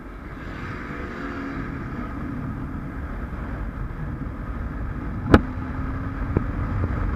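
Motorcycle engine running at road speed with wind noise on the microphone, growing gradually louder. A sharp click about five seconds in.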